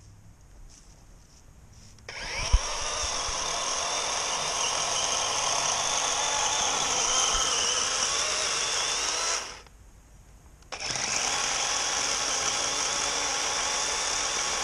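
DeWalt electric chainsaw running and cutting into a log. It starts suddenly about two seconds in with a brief thump, stops for about a second near the ten-second mark, then starts again and runs steadily.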